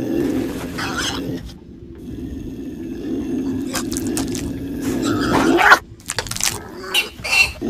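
Low, rough growling from a small creature, in two long stretches, followed near the end by a run of sharp clicks and snaps.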